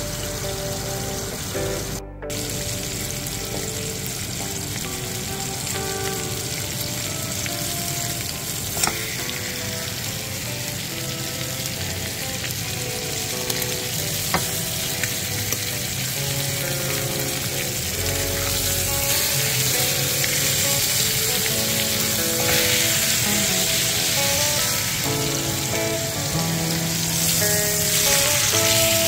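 Pork chops sizzling as they fry in a skillet, the sizzle getting louder past the middle, with a few light clicks of a fork against the pan. Music plays underneath.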